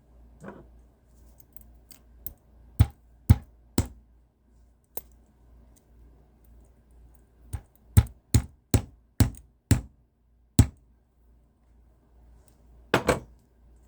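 Sharp knocks of a model kit truck's wheel being tapped onto its thick axle to seat it: three knocks, then a run of about six at two to three a second, and a final double knock near the end.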